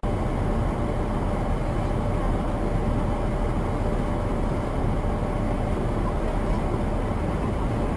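Steady road and engine noise of a moving car, picked up by a dashcam inside the cabin.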